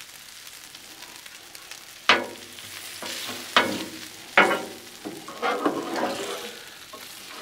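Steak, peppers and onions sizzling on a Blackstone flat-top griddle, with a metal spatula scraping and clanking against the griddle's steel top several times from about two seconds in.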